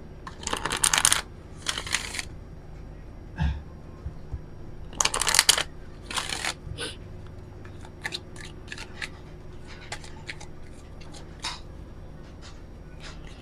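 An oracle card deck being riffle-shuffled by hand: two bursts of riffling near the start and two more around five and six seconds in, then a run of short, light card clicks.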